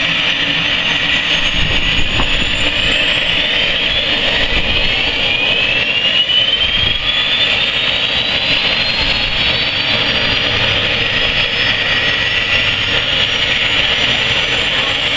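Air ambulance helicopter's turbine engines running up on the ground with the main rotor turning: a steady loud rush with a high whine that rises in pitch over the first few seconds, then holds steady.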